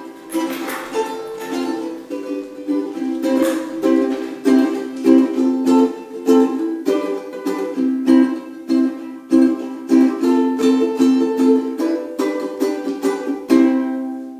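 Ukulele strummed by hand, chord after chord in a steady rhythm.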